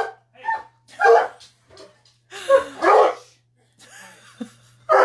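A coonhound barking repeatedly, several loud barks about a second apart.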